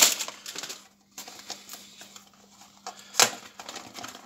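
Small clicks and light rustling of cardboard and foil packaging being handled as a Funko Mystery Mini blind box is opened, with one sharp tap about three seconds in.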